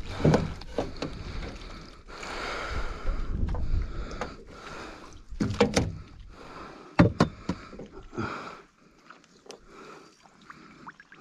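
Landing net lifted out of the water over the side of an aluminium boat: water rushes off the mesh, then knocks and clatter as the net and the netted bream inside it are handled on board.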